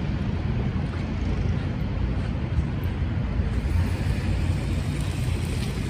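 Steady low rumble of city street noise, mostly road traffic.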